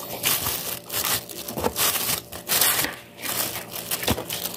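Clear plastic food bag crinkling and rustling in irregular bursts as forks dig noodles out of it.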